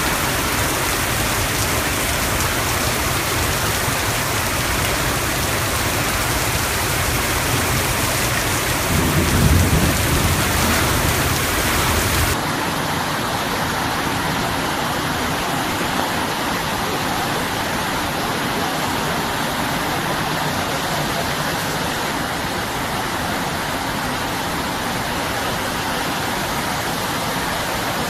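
Heavy typhoon rain pouring down in a steady, dense hiss, swelling louder and deeper around nine to ten seconds in. About twelve seconds in it changes abruptly to a thinner, steady rain hiss with less low rumble.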